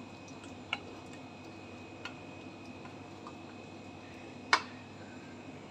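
A spatula knocking against the side of a metal cooking pot while stirring rice in broth: three short clicks, the loudest a sharp knock about four and a half seconds in, over faint steady background noise.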